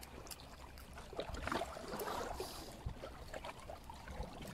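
Seawater lapping and gurgling in the gaps between breakwater rocks, with scattered small splashes and ticks.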